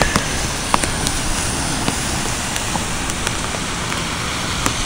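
Steady outdoor street noise over a wet, flooded road, with a few faint clicks.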